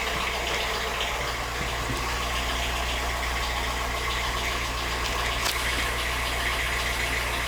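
Volkswagen Fox engine idling steadily, with a single short click about two-thirds of the way through. It still carries the engine noise that the mechanic suspects comes from the hydraulic tappets.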